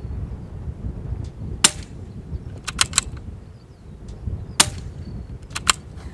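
Scoped bolt-action rifle fired twice, about three seconds apart, each shot followed about a second later by a quick run of sharp clicks as the bolt is worked. Wind rumbles on the microphone.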